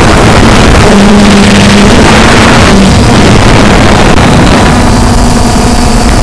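Cheerson CX-20 (Quanum Nova Pro) quadcopter's brushless motors and propellers droning in flight, heard from on board with heavy wind rush on the microphone. The motor hum changes pitch as the drone manoeuvres, settling on a slightly higher steady tone about four and a half seconds in.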